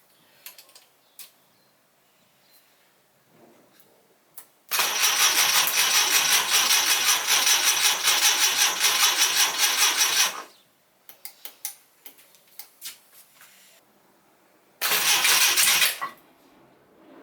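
Citroën GS 1.3 air-cooled flat-four cranked over on its starter for about six seconds, then once more for about a second near the end, with small clicks in between. This is the first start attempt since the engine was stripped down and two bent valves were fixed.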